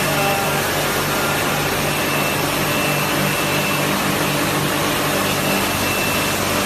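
Industrial eight-cylinder carpet washing machine running steadily: an even mechanical rush over a low motor hum, with a faint high whine that comes and goes.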